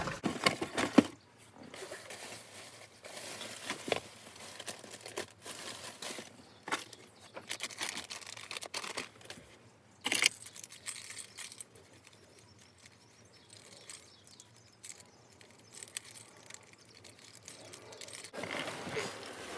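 Packaging being handled: intermittent rustling and crinkling with scattered clicks and knocks. The loudest knock comes about ten seconds in.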